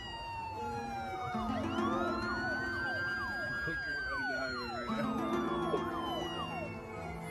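An emergency-vehicle siren wailing in slow sweeps of pitch, with a run of quicker falling sweeps in the middle, over background music.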